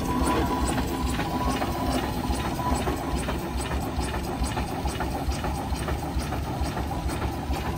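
Steam traction engine under way at walking pace: a steady, even beat of exhaust and motion over a low rumble, slowly growing fainter as it draws away.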